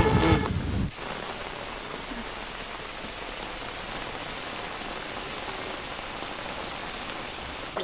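Instrumental music that cuts off about a second in, followed by a steady, even hiss that holds to the end.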